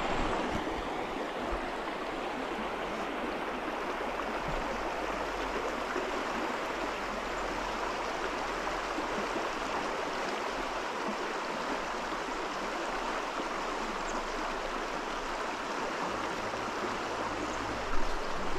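Steady rush of a trout stream's flowing water, with a brief low bump near the end.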